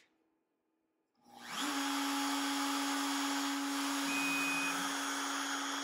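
Router spindle of a Onefinity CNC machine spinning up about a second in, then running at a steady speed with an even whine. The V bit has not yet started cutting.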